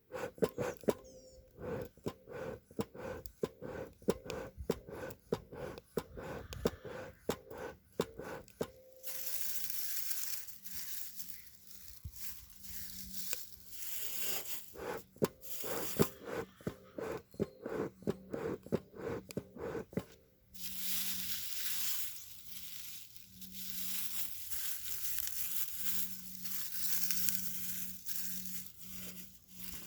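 Bee smoker being lit and fed with dry pine needles: crackling and rustling of the needles, with many sharp clicks and stretches of steady hiss.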